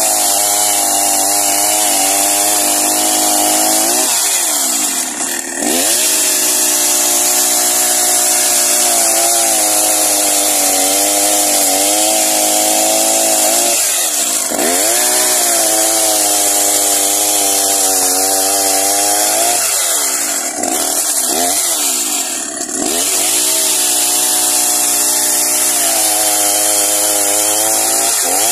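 Husqvarna two-stroke chainsaw at full throttle, ripping a log lengthwise along the grain. Its engine note drops and climbs back several times as the bar works through the wood.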